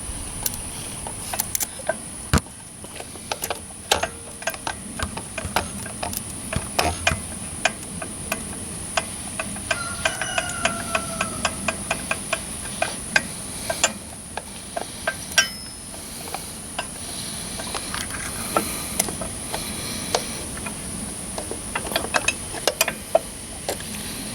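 Irregular sharp clicks from a Mahindra eMax compact tractor's starter circuit as the key is tried, with no cranking: the engine does not turn over, which the owner takes for a faulty starter or a short in the switch wiring. A steady high-pitched insect drone runs underneath.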